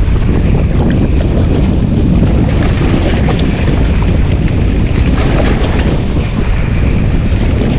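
Wind buffeting the microphone in a steady low rumble, with sea waves beneath it.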